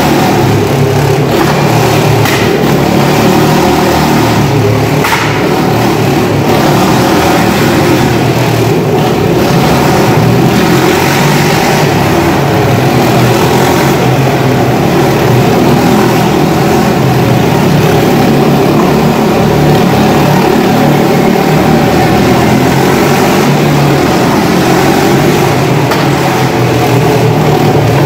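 Several motorcycles riding round the vertical wooden wall of a Wall of Death drum, their engines running hard in one loud, continuous drone.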